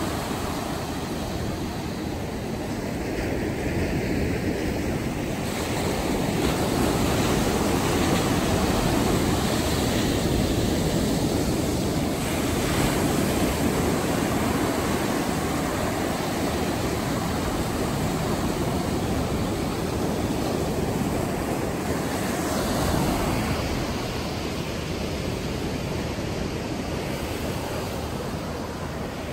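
Atlantic surf breaking close by and washing up a sandy beach, a steady rush of water that swells and eases as each set of waves comes in.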